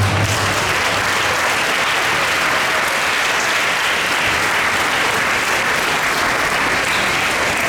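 Audience applauding steadily right after a piece of music ends.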